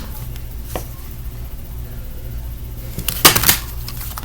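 A cluster of sharp taps, several in quick succession about three seconds in, over a steady low hum; there is one faint click about a second in.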